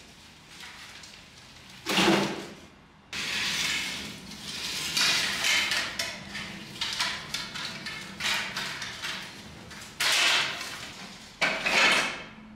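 Cut cane stalks clattering and knocking against one another as they are handled and set down. There is a sharp clatter about two seconds in, then a long run of irregular rattling knocks, then two more loud clatters near the end.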